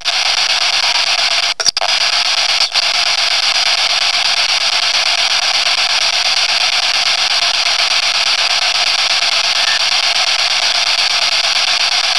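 Loud, steady hiss of static noise, without words, cutting out for an instant a few times in the first three seconds.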